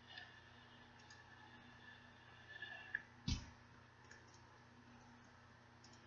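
Near-silent room tone with a faint hum and a faint high whine that stops about three seconds in. There are a few faint clicks and a single short thump just after the whine stops.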